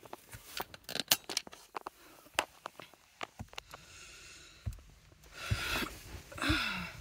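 Handling noise from a phone being moved and repositioned: scattered small clicks and rubs, then soft breathy sounds near the end.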